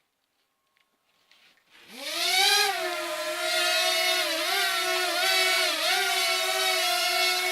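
Parrot Swing minidrone's electric motors and propellers spinning up with a rising whine about two seconds in, then holding a steady high whine with brief dips and rises in pitch as it flies.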